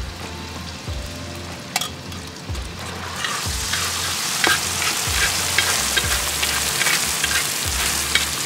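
Chopped onions frying in a large metal pan, stirred with a spatula that scrapes and clicks against the pan. The sizzle grows louder about three seconds in.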